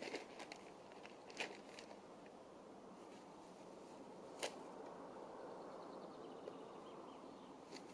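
Camping gear being handled and unpacked from a backpack: a few short sharp clicks and knocks, the loudest about a second and a half in and again about four and a half seconds in, over a steady faint outdoor hiss.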